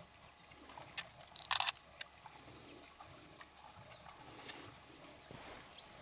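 Handling noise from a handheld camera: a few sharp clicks and a short crackle about one to two seconds in, over a quiet outdoor background with a few faint high chirps.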